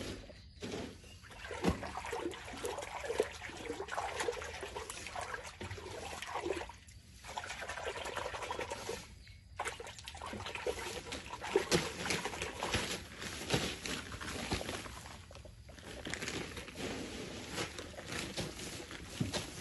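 Plastic feed bag rustling and crinkling as a young elephant's trunk grabs it on the ground and then lifts and shakes it. The crackling comes in an irregular run of small clicks, with two short lulls along the way.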